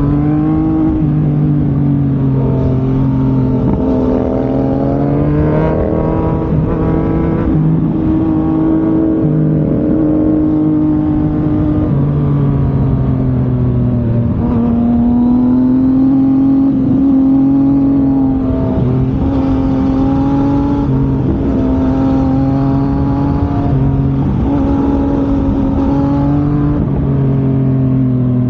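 A sport motorcycle engine running on the move. Its pitch rises and drops repeatedly as the throttle is opened and closed and the gears change.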